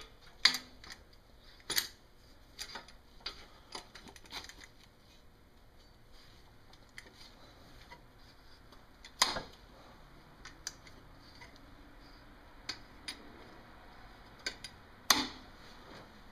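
Scattered sharp clicks and light knocks from handling the aluminum dash insert and the drill press as the plate is set against the ruler guide for engine turning; the loudest knocks come about nine seconds in and near the end.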